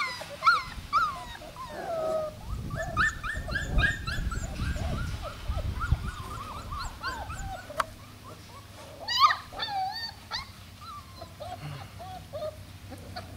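Young puppies yipping and whimpering in many short, high-pitched squeaks, one after another, with a low rumble for a few seconds early in the stretch.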